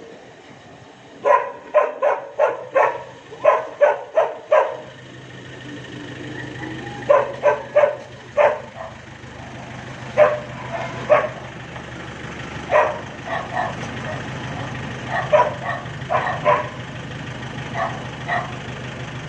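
A dog barking in a quick run of about eight barks, then in scattered single barks and pairs. Under the later barks, from about five seconds in, there is a steady low engine hum.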